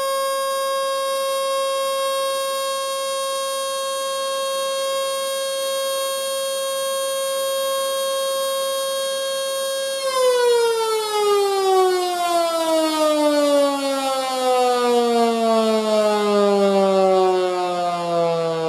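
An early Model 2 electric outdoor siren, built around 1911 and running on 220 V, holding a steady high tone for its alert signal. About ten seconds in the power is cut and it winds down, the tone falling steadily in pitch as the rotor coasts.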